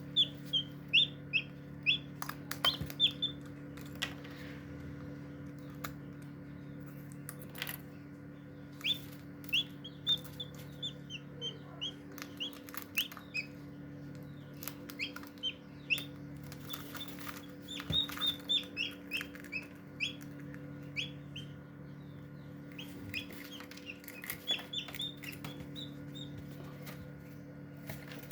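Newly hatched Shamo Aseel chick peeping: short, high-pitched notes that slide downward, in quick runs with pauses between them, over a steady low hum.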